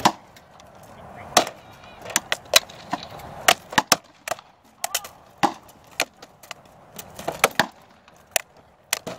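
Rattan swords striking shields and steel armour in SCA armoured combat: about twenty sharp wooden cracks and clacks at irregular spacing, some coming in quick pairs and triples.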